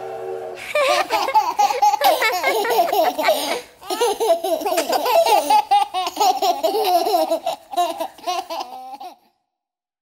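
Children laughing and giggling in two long stretches with a short break between them, after the last chord of a song dies away at the very start; the laughter stops abruptly about nine seconds in.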